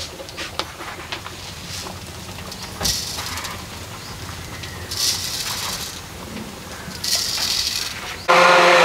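Spoonfuls of sugar poured into a blender jar of chopped pomelo, each a short hiss of sliding grains, three of them about two seconds apart. Near the end the electric mixer-grinder starts and runs loud and steady with a motor whine.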